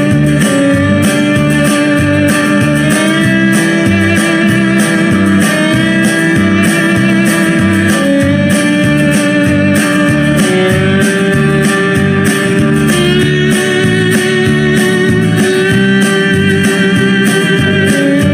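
Guitar music: a melody of held, wavering notes over a steady, pulsing bass line.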